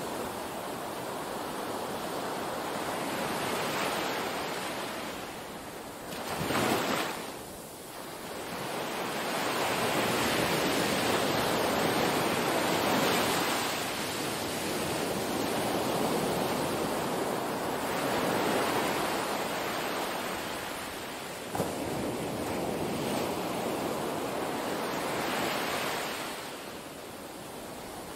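Small waves washing onto a sandy beach, the surf swelling and fading in slow surges every few seconds, with one sharper, louder wash about seven seconds in.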